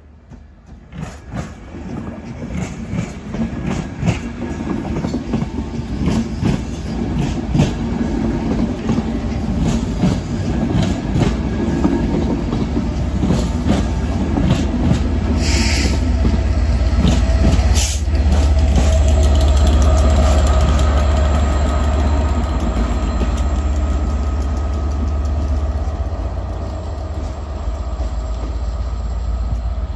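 Locomotive-hauled passenger train pulling slowly out past the platform: coach wheels clacking over rail joints, then the Class 67 diesel locomotive propelling at the rear passes with a loud low engine drone that peaks past the middle and eases as it draws away. A brief hiss comes about halfway through.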